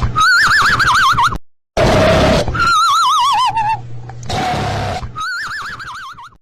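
A warbling, whinny-like animal call, repeated several times, alternating with short bursts of rushing noise over a low hum.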